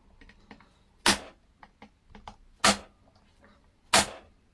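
Three sharp knocks, roughly a second and a half apart, of a soft-faced dead-blow mallet striking a metal drift held against a shaft in a Yamaha PW80 crankcase, tapping the two crankcase halves apart.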